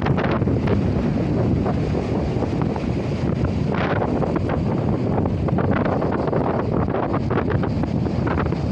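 Strong wind of about 9 m/s buffeting a smartphone's microphone: a loud, steady rumble broken by frequent crackling gust hits.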